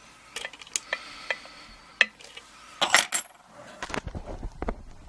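Small metallic clicks and clinks of a padlock and its keys being handled, with a louder clatter about three seconds in, then a low rumble of handling noise.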